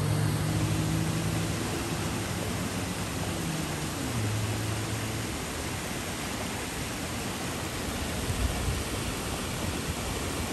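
Steady rushing of flash-flood water, an even hiss-like noise. A low hum under it fades out about halfway through.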